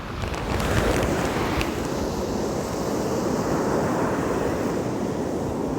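Rough sea's waves surging and breaking in a steady wash of surf, with wind buffeting the microphone.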